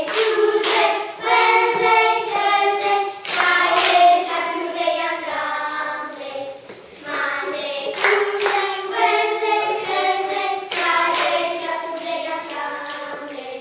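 A group of children singing a song together while clapping hands with partners in a hand-clapping game; the singing pauses briefly about seven seconds in.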